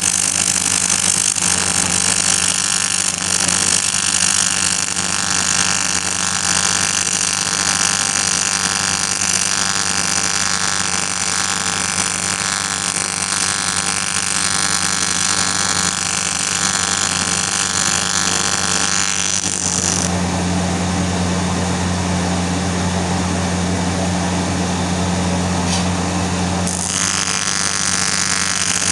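Electric arc welding, a steady hissing crackle over a deep mains hum from the welding set. About two-thirds of the way through, the high hiss drops out for several seconds while the hum grows stronger, then the hiss returns.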